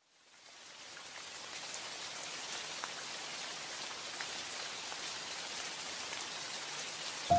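Steady hiss of falling water, like a waterfall's spray or rain, with scattered faint droplet ticks, fading in over the first second. A single sustained musical note starts at the very end.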